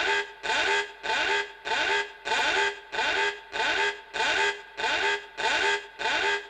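Car alarm sounding: a harsh pulsing tone that repeats evenly, about three pulses every two seconds.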